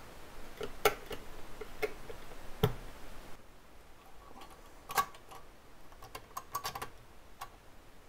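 Irregular small clicks and taps of a plastic typewriter ribbon spool being handled and pressed onto an Olivetti manual typewriter's spool post, with a quick run of clicks near the end.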